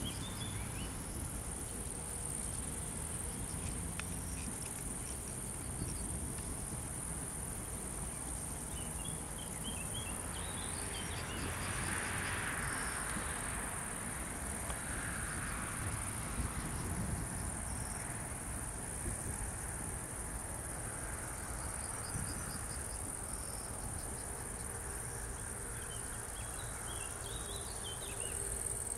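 Insects chirring steadily at a high pitch over a low, steady rumble of distant diesel locomotives. Short bird chirps come and go.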